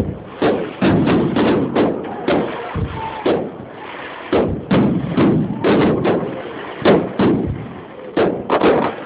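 Fireworks exploding in rapid, irregular succession: a dense run of bangs, about two to three a second, each followed by a short echo.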